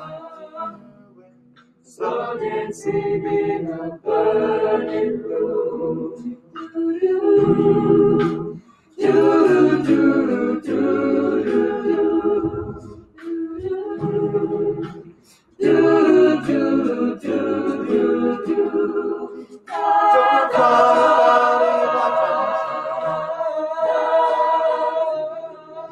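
Mixed-voice a cappella group singing a pop song, voices only, in phrases that break off briefly about 2, 9 and 15 seconds in, growing fuller from about 20 seconds in.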